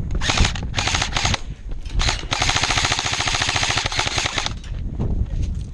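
Airsoft gun firing on full auto: a few short rapid bursts in the first second or so, then one long burst of about two seconds.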